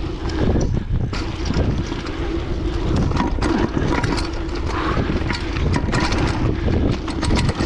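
Wind buffeting the microphone of a mountain bike ridden fast down a dirt trail, with tyre noise on dirt and rock and frequent sharp rattles and knocks from the bike over bumps.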